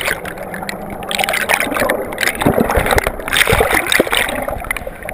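Shallow river water rushing and gurgling over a pebbly bed, heard by a GoPro held underwater and at the surface, with scattered knocks.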